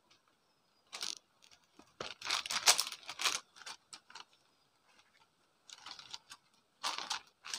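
Paper courier envelope rustling and crinkling as it is handled, in irregular bursts, loudest about two to three seconds in.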